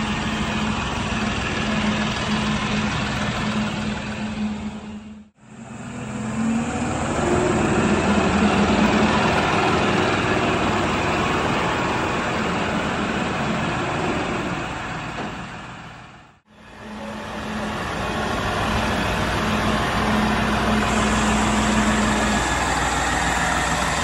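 New Holland tractor's common-rail diesel engine running, mostly a steady idle, with a louder stretch in the middle where the engine note rises as it revs. The sound cuts out briefly twice, about five seconds in and again past sixteen seconds.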